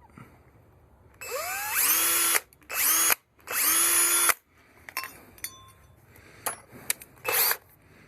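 Power drill run in short bursts: three runs close together, each rising in pitch as the motor spins up and then holding steady, and a brief fourth run near the end, with light clicks and taps between.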